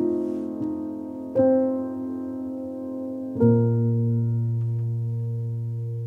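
Background piano music: slow chords struck one after another, the last, with a deep bass note, about three and a half seconds in and left to ring and fade.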